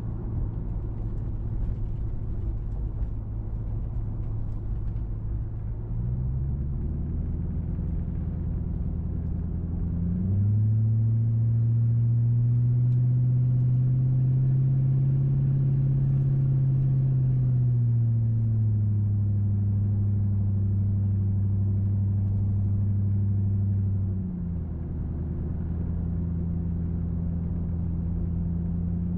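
2005 Mercury Grand Marquis 4.6-litre V8 exhaust through an H-pipe with the mufflers deleted, heard from inside the cabin. A steady low drone steps up in pitch about six seconds in, then again and louder at about ten seconds as the car accelerates to pass. It holds and rises a little, eases back, then falls abruptly a few seconds before the end.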